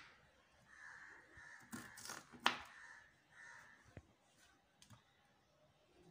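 Kitchen knife cutting broccoli florets on a wooden chopping board: a few sharp chops and snaps through the stems, the loudest about two and a half seconds in.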